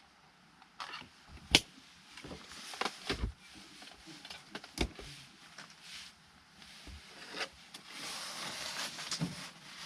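Scattered knocks and clicks of objects being handled, with a sharp knock about a second and a half in and a stretch of rustling near the end.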